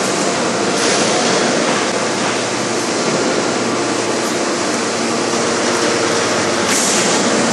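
A 5000-ton hydraulic forging press and its hydraulic system running steadily and loudly while forging a red-hot workpiece. Brief hissing surges come about a second in and again near the end.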